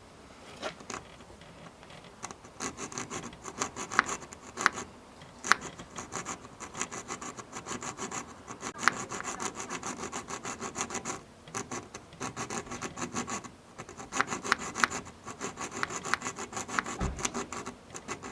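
Hand sawing through the storage door's hinge G channel: quick back-and-forth scraping strokes, with a couple of short pauses midway. The slow hand cut is made instead of using a jigsaw, to slit the channel so the new rubber hinge can slip in.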